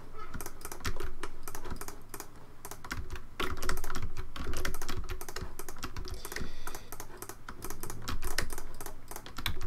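Computer mouse clicks and keyboard key presses in rapid, irregular succession, as vertices are clicked and the F key is pressed over and over to fill faces.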